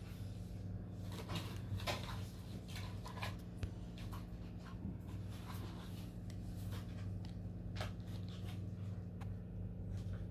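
Scattered light rustles, taps and clicks of hands handling a boxed laptop and its packaging, over a steady low electrical hum.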